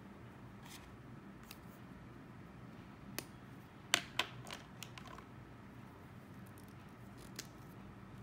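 A few small, sharp plastic clicks and taps with a quick cluster of four or five a little past the middle, the loudest, as a fountain pen's cap and pens are handled on the desk. A faint steady room hum runs underneath.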